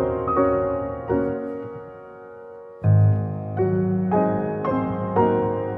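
Background music with a melody of struck keyboard notes. The notes die away to a lull about two seconds in, and the music picks up again just before three seconds with deep bass notes.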